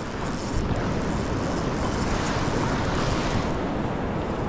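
Steady wind buffeting the microphone, a rushing noise heavy in the low rumble, over the wash of the sea and surf on the reef.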